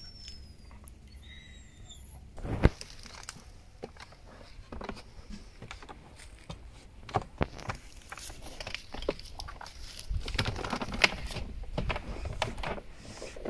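A person climbing a telescopic aluminium ladder and getting into a rooftop tent: irregular knocks, clicks and rustling, with a sharp knock about two and a half seconds in and another near eleven seconds. A few faint high chirps sound in the first two seconds.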